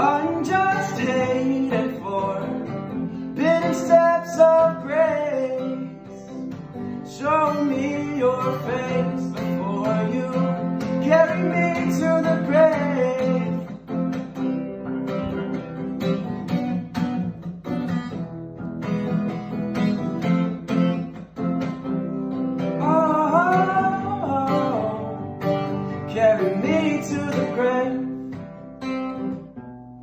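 Acoustic guitar strummed steadily under a male voice singing drawn-out, sliding phrases, with short gaps between them.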